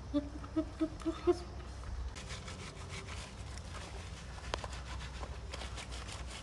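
Hands scrubbing shampoo lather into a baby chimpanzee's wet fur, a quick run of repeated rubbing strokes that sets in about two seconds in. Near the start, a short string of five brief vocal notes, the loudest sounds.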